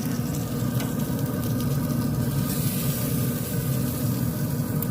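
Chicken wings sizzling on a grill over a steady low rumble, with a couple of faint clicks.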